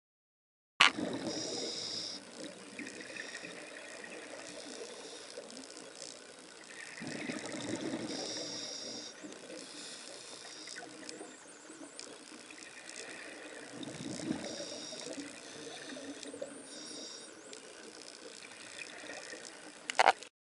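Water trickling and bubbling, a steady running-water sound that starts abruptly about a second in and swells and eases in a pattern that repeats about every seven seconds.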